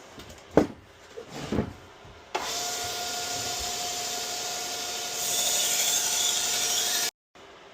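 A couple of light knocks, then about two seconds in a 1x30 belt grinder starts running steadily with a thin whine. A little past halfway a louder hiss joins as a kitchen knife blade is ground against the belt. The sound cuts off abruptly near the end.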